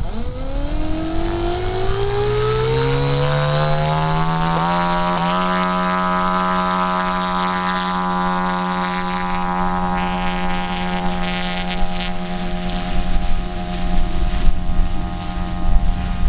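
Electric motor and propeller of a large 12-cell RC scale glider running up to power, a whine that rises in pitch for about five seconds and then holds steady. Bursts of low rumble come in near the end.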